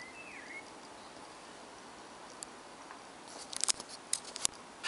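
A quick cluster of sharp clicks and ticks about three and a half seconds in, over a steady hiss, with one short whistled chirp near the start.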